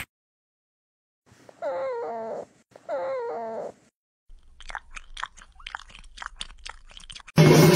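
Two drawn-out wavering calls, then a cat crunching dry food crumbs, several sharp crunches a second. A louder sound cuts in near the end.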